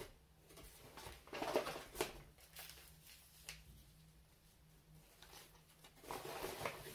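Quiet handling of groceries and packaging: a paper bag and small plastic sachets rustling and crinkling as items are lifted out and set down, in two spells, with a few light taps.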